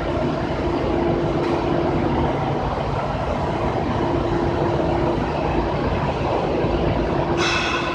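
Sawdust charcoal making machine running: a steady, loud mechanical drone with a held hum, and a brief high-pitched squeal near the end.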